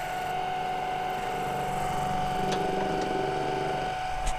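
Mini lathe running with a steady whine while its cutter takes a very light pass across the end of a spinning steel hole punch. A lower hum joins about a second in and stops just before the end, followed by a sharp click.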